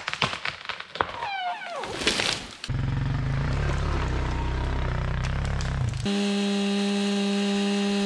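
Quick cuts of woodland work: a few brief knocks and creaks, then a four-wheeler engine rumbling as it pulls a log on a strap, then, from about six seconds in, a chainsaw running steadily at full throttle as it rips a log in a Granberg chainsaw mill.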